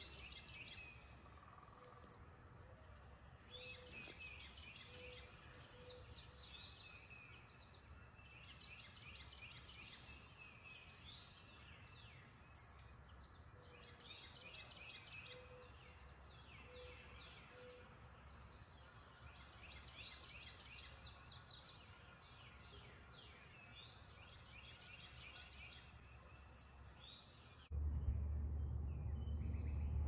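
Faint mixed chorus of wild songbirds, including mourning dove, tufted titmouse, Carolina chickadee, Carolina wren and northern cardinal. One bird repeats a rapid trilled song phrase every few seconds over a row of low cooing notes. Near the end a much louder low rumble cuts in suddenly.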